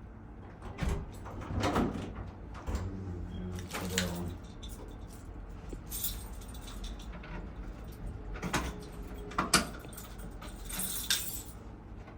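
Keys jangling with scattered clicks and knocks, irregular, with short bursts of rattling about six and eleven seconds in.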